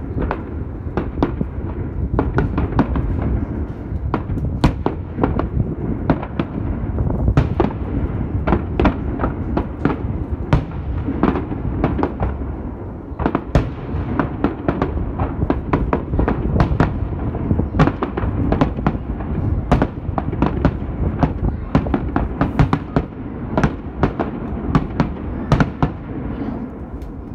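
Aerial fireworks display: shells bursting in quick succession, many sharp bangs and crackles over a continuous low rumble, thinning out near the end.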